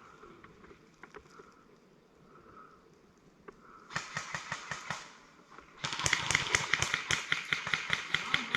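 Airsoft gun firing rapid shots: a short burst about four seconds in, then a longer, even string of sharp cracks at about eight a second through the last few seconds.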